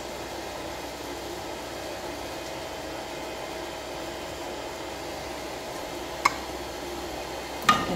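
Steady fan-like hum with a faint hiss, with one sharp click about six seconds in.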